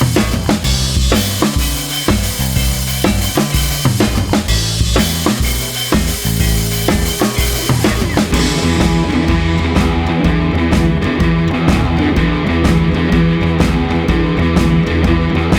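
Background rock music: a drum-kit beat over a bass line, changing a little past halfway into a fuller section of sustained chords.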